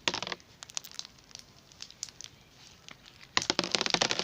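Crunch slime full of perler beads being stretched and squished by hand, giving scattered crackles and pops, with a dense run of crackling near the end.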